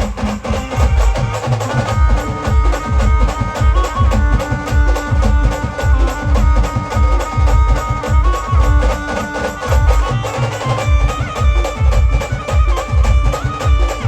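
A band playing loud, fast-driving music: heavy drum beats pound steadily under a held, wavering melody line, which shifts to new notes about two seconds in and again near eleven seconds.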